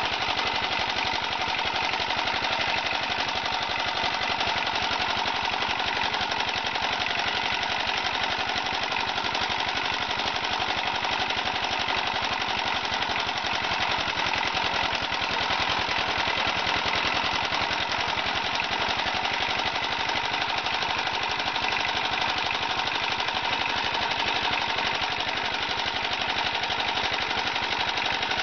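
Small motor-driven charcoal briquette extruder running steadily under load, with a fast, even clatter.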